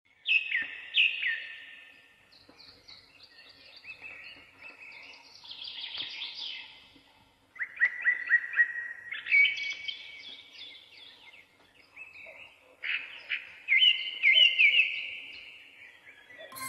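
Songbirds chirping and singing in short phrases of quick falling notes, with brief pauses between phrases.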